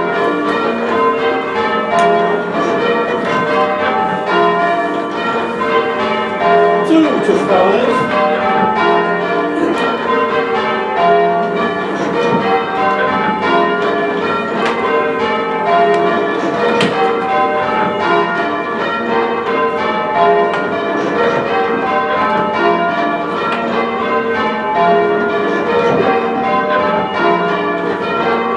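A heavy ring of six church bells rung full circle in change ringing: one bell struck after another in an even, unbroken rhythm, each strike ringing on under the next.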